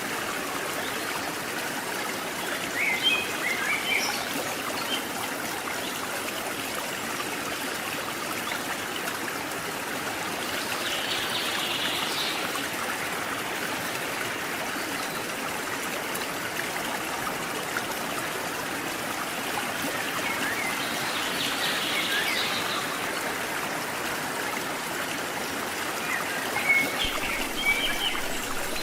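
Steady rushing of a stream, with short bird chirps breaking through a few times.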